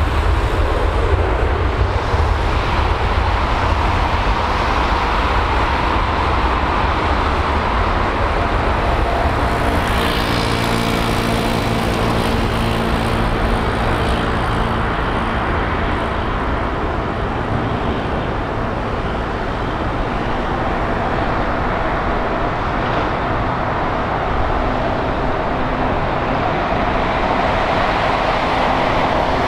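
Boeing 747-8's four GEnx turbofan engines at takeoff thrust during the takeoff roll: a loud, steady jet roar with a deep rumble, and a set of steady humming tones standing out for several seconds near the middle.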